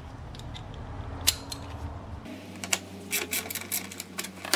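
Ratchet with a T30 Torx bit clicking as it turns out the Torx bolt that holds the radiator fan assembly: a few scattered clicks at first, then a quick run of clicks from about halfway through.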